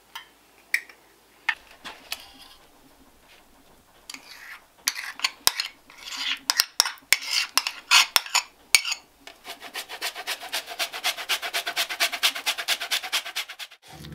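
A few light clicks, then a metal spoon scraping and tapping against a small dish and an earthenware bowl as egg yolks and sour cream are spooned in. From about nine seconds in, a wooden spatula beats the butter mixture in the clay bowl in quick, even strokes.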